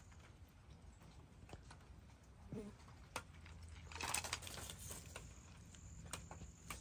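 A fox eating from a metal bowl: faint chewing and scattered clicks, with a denser patch of crunching about four seconds in.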